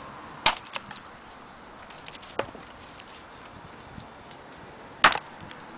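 Collins camp hatchet chopping into a hard, gnarly hedge-tree branch on a wooden chopping block. There are three sharp strikes, about half a second in, about two and a half seconds in, and the loudest near the end.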